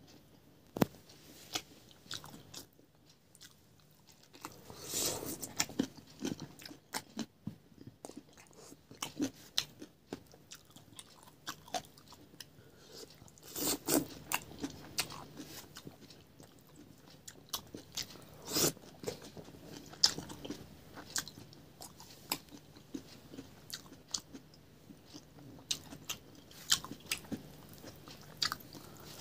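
A person eating by hand, chewing and crunching mouthfuls of food with wet mouth clicks and smacks, irregular, with an occasional louder crunch. A faint steady low hum lies underneath.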